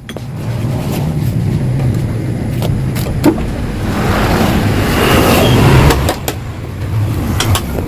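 A motorcycle engine running, louder for a couple of seconds in the middle, with a few sharp clicks.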